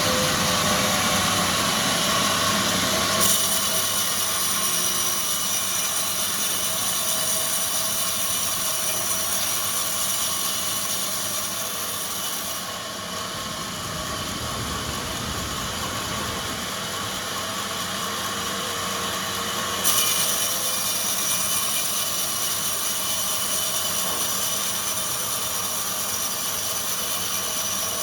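Sawmill machinery running and sawing through log timber: a steady mechanical noise with a high whine. The sound changes abruptly three times, about 3, 13 and 20 seconds in.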